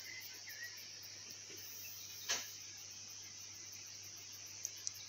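Quiet outdoor background: a faint steady high hiss, a few faint short chirps in the first second, and a single sharp click a little over two seconds in.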